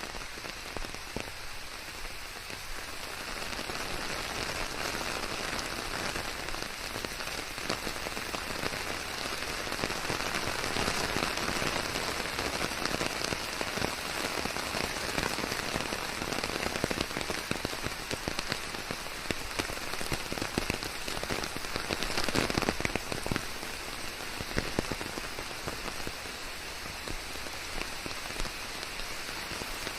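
Steady rain falling through forest, a dense even patter of drops, briefly a little louder about 22 seconds in.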